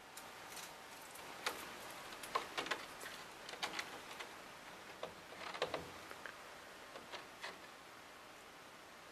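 A raccoon's claws scratching and tapping at the window as it stands against it: faint, irregular ticks and short scrapes, busiest in the first few seconds.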